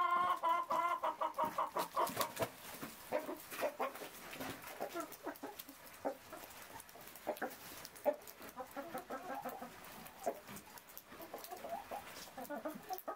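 Hen clucking in many short, separate calls while settling onto a straw nest with an egg in it. A long pitched animal call fades out about a second in.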